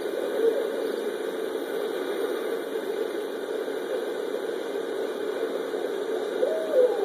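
Steady rushing background noise, then about six seconds in a barred owl starts hooting, its calls sliding up and down in pitch.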